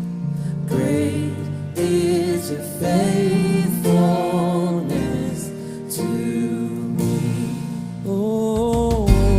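Background music: a soulful sung melody with vibrato over chords, with a deep bass coming in near the end.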